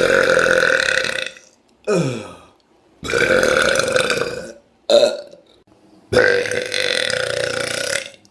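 Men burping loudly on purpose, one after another: three long, drawn-out belches of about one and a half to two seconds each, with two short burps between them, the first of these falling in pitch.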